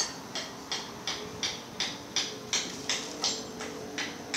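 A steady series of short, sharp clicks or taps, evenly spaced at about three a second.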